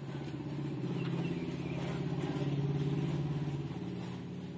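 A motor vehicle's engine running, growing louder to a peak a little past halfway and then fading away.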